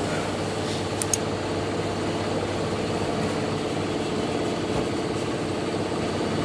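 A motor running steadily with an even hum, with two light clicks about a second in.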